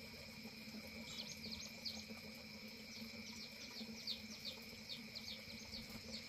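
Faint steady hum of honeybees around open hives, with a bird giving runs of quick, short, high chirps over it.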